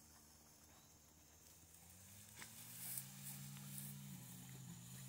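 Near silence: faint outdoor ambience, with a faint low steady hum that grows from about two seconds in.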